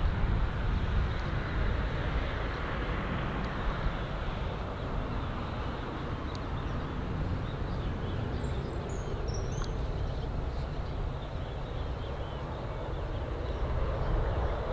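Boeing C-40A Clipper's twin CFM56 turbofan jet engines running at low power as the airliner rolls out along the runway, a steady rumbling hiss that grows slightly louder near the end as the jet turns toward the listener. A few faint bird chirps come in around the middle.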